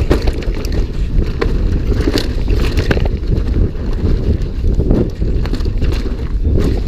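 Mountain bike descending a rough trail at speed: wind buffets the camera microphone as a steady low rumble, with frequent rattles and knocks from the bike over the ground.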